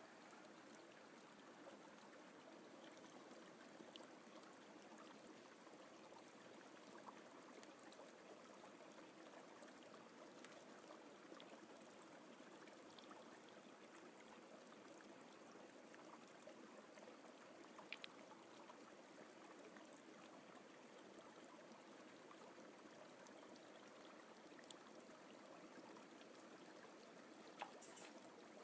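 Faint, steady rushing of a forest stream, with a few light clicks, one about two-thirds of the way through and a short cluster near the end.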